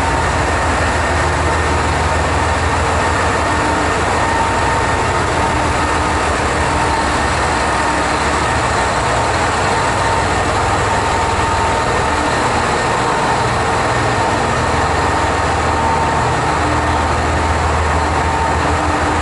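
Diesel engines of a KiHa 187 limited-express railcar running steadily at the platform, a continuous low throb with a steady high hum over it.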